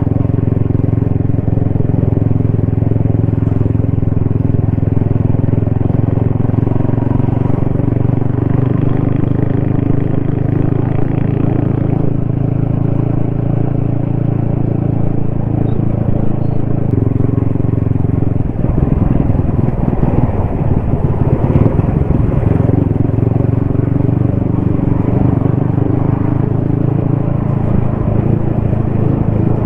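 Yamaha XSR155's single-cylinder engine and exhaust running steadily while riding. About two-thirds of the way through, the even note breaks up for a couple of seconds, then settles into a steady drone again.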